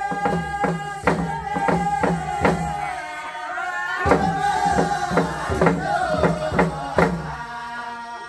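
A group singing a traditional chant in unison, with long held notes, over a steady drumbeat of about two strikes a second.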